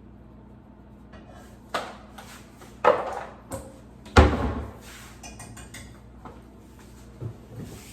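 Cookware and utensils clattering: a few sharp metallic knocks, the loudest about four seconds in with a short ring after it, followed by lighter clicks and taps.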